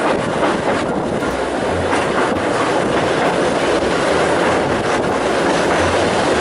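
Train running along the track: a loud, steady rumble of wheels on rails.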